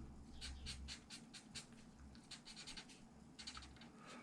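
Marker tip scratching across copy paper in quick back-and-forth shading strokes, several a second in short runs, faint.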